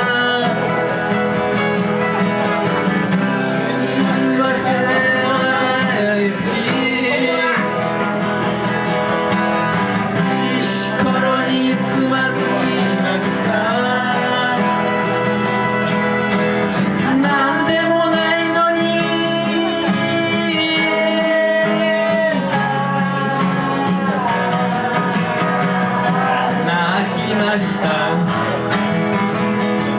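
Acoustic guitar music in an instrumental passage of the song, with a held, bending lead melody over a steady guitar accompaniment.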